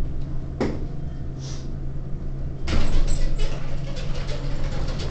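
Elevator car running with a steady low hum, a brief swish about half a second in, and louder rattling and rustling from about two and a half seconds in.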